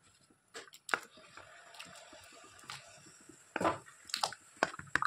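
Raw potato slices pushed by hand off a steel plate into a pot of boiling water: a few sharp clicks and knocks, then a louder wet splash and slither of slices going in about three and a half seconds in, followed by more light knocks.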